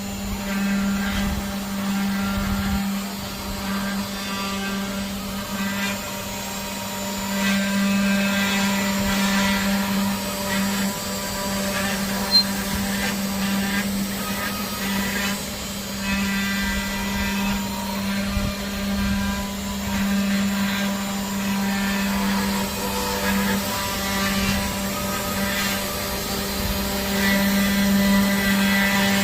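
Custom five-axis CNC machine running: a steady spindle hum, with higher whines that shift in pitch now and then as the axes move.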